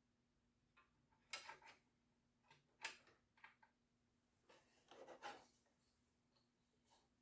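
Faint, scattered clicks and knocks of wooden poplar slats being handled and shifted against each other on a workbench, over a faint steady hum.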